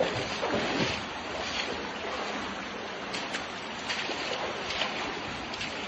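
Water rushing and splashing in a cave stream as people wade through it, a steady wash of noise with a few small splashes.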